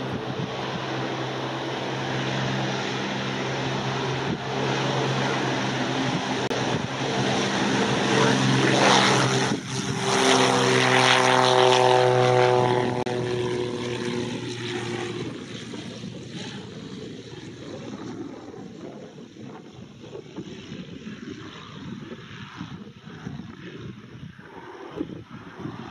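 Gippsland GA-8 Airvan's single piston engine and propeller at takeoff power, a steady droning note. It grows louder through the takeoff roll, is loudest as the plane passes close about ten seconds in, then fades as it climbs away.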